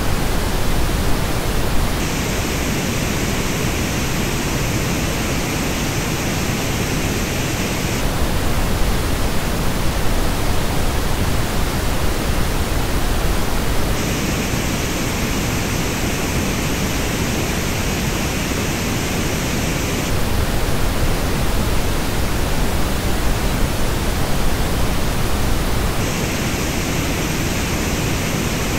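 Pink noise test signal, switching about every six seconds between the flat original and the same noise as reproduced through AKG K702 open-back headphones. The headphone version has more energy in the upper range and a deep gap high in the treble. The hiss is steady and loud throughout, with the switches about two seconds in, at the midpoint and near the end.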